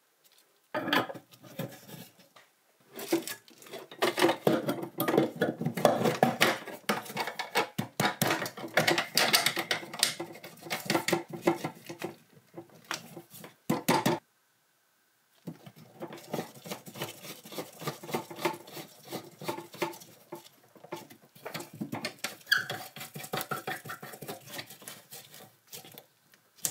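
Black plastic sink drain pipes and fittings being handled and fitted back together by gloved hands: a busy run of light plastic clicks, knocks and rubbing, with a short pause about halfway.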